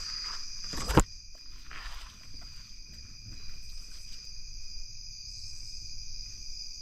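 Night insect chorus: a steady, high, unbroken trill. A single sharp knock comes about a second in.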